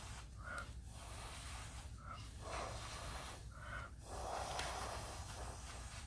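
Faint breath blown through a drinking straw in about five short puffs, pushing wet epoxy resin across a board into wave shapes.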